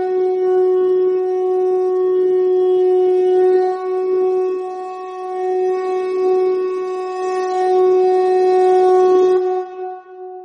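Conch shell (shankha) blown in one long, steady note that fades out near the end.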